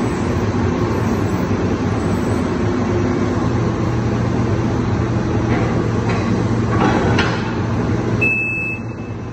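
Wirtgen W 120 XFi cold milling machine running steadily while its hydraulic leg is retracted. Near the end the noise drops a little and a short high-pitched tone sounds.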